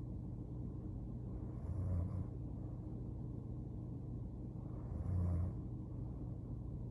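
A woman snoring in her sleep: two short, low snores about three seconds apart, over a steady low hum.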